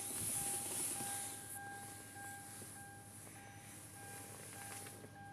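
Kia Opirus's 3.0-litre G6CT V6 idling warm, with a steady hiss that is strongest in the first second or so and a faint tone that repeats about every two-thirds of a second.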